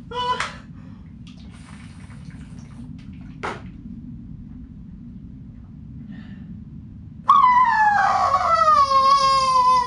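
A high, wailing laugh: a short squeal at the start, then about seven seconds in a long, loud wail that starts high and slides steadily down in pitch. There is a single click about halfway through and a low rumble in the background.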